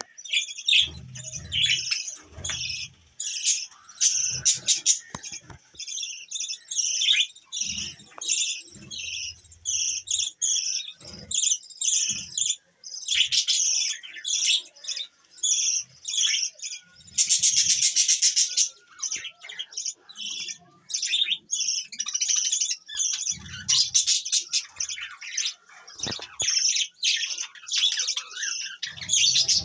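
Budgerigars chattering in a fast, continuous run of short high chirps, with a longer harsh screech about halfway through. Brief low bumps come and go underneath.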